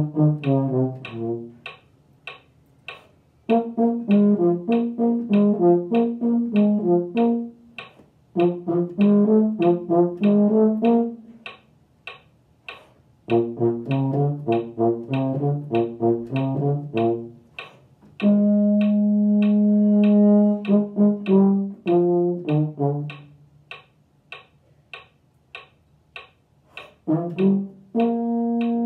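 Euphonium playing an unaccompanied low brass band part: phrases of short, detached notes separated by brief rests. There is one long held note about two-thirds of the way in, and another begins near the end.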